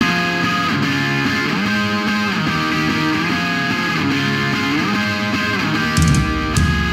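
Background music: a guitar plays sustained notes with sliding pitch, and about six seconds in a fuller rock band with drums and bass comes in.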